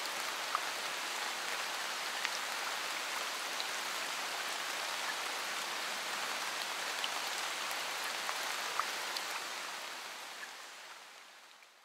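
Steady rain-like hiss with scattered faint drip-like ticks, fading out over the last two seconds.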